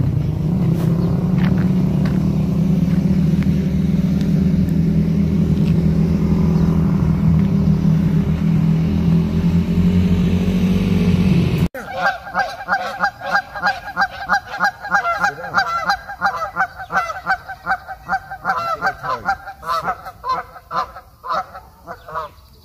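A steady, loud low engine drone, like a motor vehicle running, cuts off abruptly about halfway through. Then a flock of Canada geese honks over and over, many quick calls overlapping.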